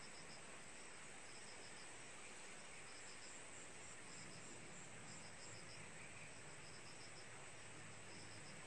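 Faint crickets chirping outdoors: short pulsed chirps repeating about once a second over a steady high-pitched hiss.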